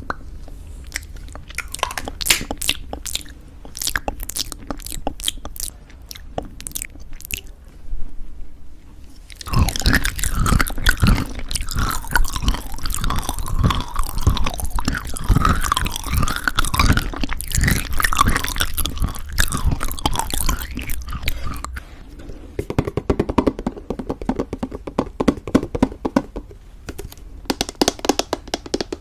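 Close-miked chewing of crunchy homemade granola in thick yogurt: scattered crisp crackles at first, then dense, loud crunching from about nine seconds in, easing to softer, wetter chewing near the end.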